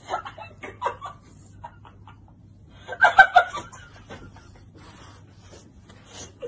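A girl's stifled giggling in short, broken bursts, loudest about three seconds in.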